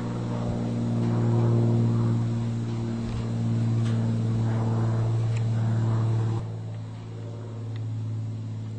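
A steady low engine hum with several even tones. Its note shifts and drops slightly about six and a half seconds in.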